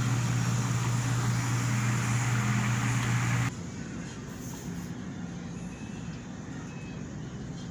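Electric fan running: a steady motor hum with whooshing air noise. About three and a half seconds in it cuts abruptly to a much quieter, duller hum.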